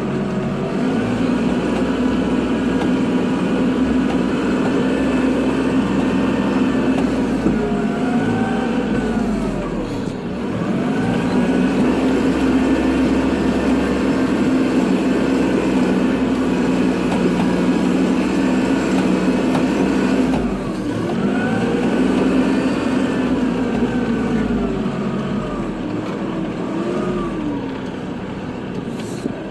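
Kubota tractor's diesel engine running steadily under load, with a whine that rises and falls in pitch. The sound dips briefly about ten and twenty seconds in.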